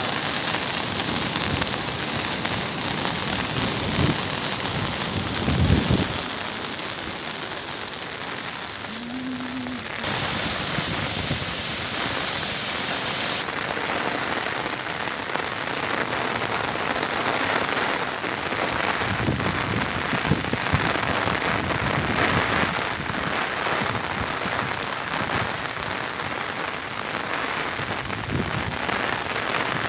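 Heavy rain falling steadily, a dense even hiss, with a couple of low thumps in the first six seconds. The sound changes abruptly about ten seconds in, where the footage cuts to a second recording of the rain.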